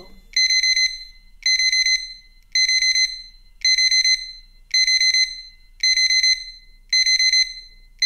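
Digital alarm clock alert: high electronic beeps in quick groups of about four, each group a little more than a second after the last, repeating steadily.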